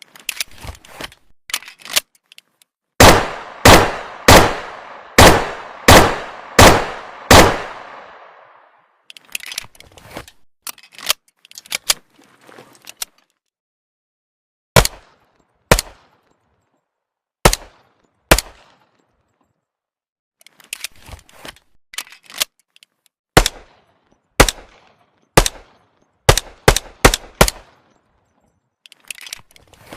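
M1911 .45 ACP pistol: seven shots fired about three-quarters of a second apart, each ringing out briefly. Before and after them come many sharp metallic clicks and clacks from the pistol's action being worked.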